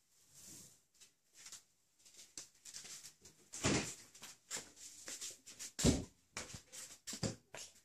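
A ferret scampering after a small rubber ball on a tiled floor: a run of scuffles and short knocks, with two louder knocks, one just before the middle and one about three-quarters through.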